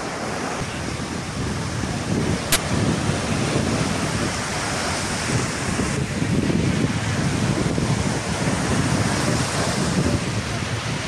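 Sea waves breaking on a sandy shore, with wind buffeting the microphone. A single sharp click about two and a half seconds in.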